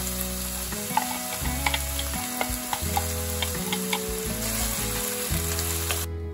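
Ground beef and onions sizzling steadily as they fry in a pan, with a scattering of light clicks. The sizzling cuts off suddenly near the end.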